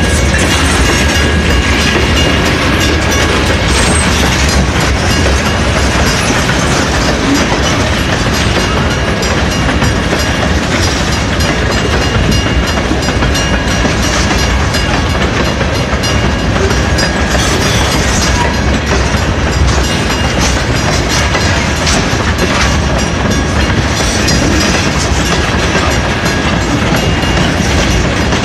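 Freight train of tank cars rolling past close by: a loud, steady rumble and clatter of steel wheels on the rails, without a break.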